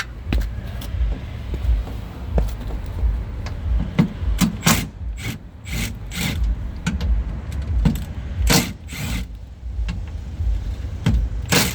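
Irregular clicks, knocks and rattles of hand tools and loose parts being handled inside a car door, over a low rumble.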